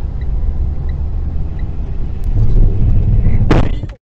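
Car driving, its engine and road noise heard as a steady low rumble inside the cabin through a dashcam microphone. About three and a half seconds in comes a brief loud noise, and the sound cuts off abruptly just after.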